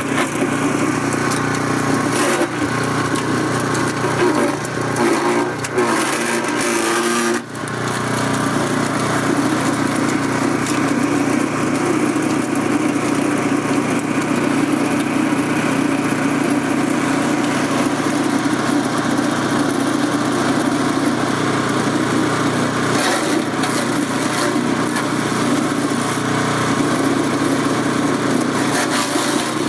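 Forest Master direct-drive wood chipper running steadily at speed, with irregular clatter in the first several seconds and a brief dip in its sound about seven seconds in.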